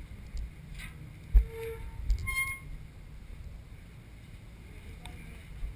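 Muffled low thumps of footsteps and handling on a body-worn action camera, over a steady low rumble, with a short metallic clink a little after two seconds in.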